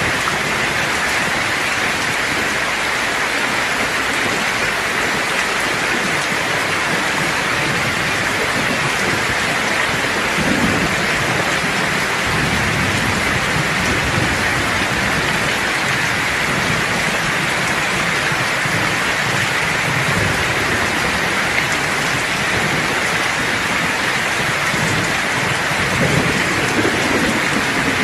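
Steady, heavy rain pouring down, with low rolls of distant thunder rumbling underneath from about a third of the way in and again near the end.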